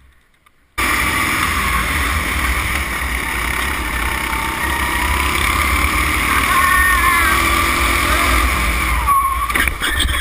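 Go-kart engine running hard, heard from on board the kart; it cuts in abruptly about a second in after a near-silent moment. The engine note is steady with some small pitch shifts, and it eases off near the end.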